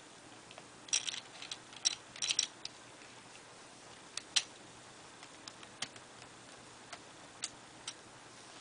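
Plastic pieces of a V-Cube 5 clicking as they are fitted into place by hand: irregular sharp clicks, a quick cluster about a second to two and a half seconds in, a pair near four seconds, then a few scattered single clicks.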